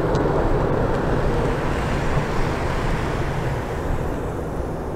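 Boeing 777-9's two GE9X turbofan engines giving a steady, deep rumble as the jet climbs out after takeoff, fading slightly near the end.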